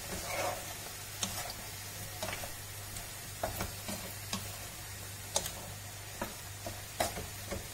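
Diced bell peppers and vegetables sizzling in a frying pan while a wooden spoon stirs them, knocking and scraping against the pan at irregular moments.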